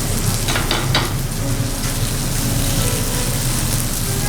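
A5 Wagyu beef sizzling steadily as it cooks, with a few short clicks about half a second to a second in.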